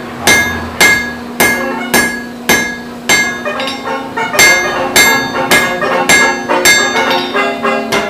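Blacksmith's hand hammer forging red-hot iron on an anvil, striking about twice a second, each blow leaving a bright ringing from the anvil.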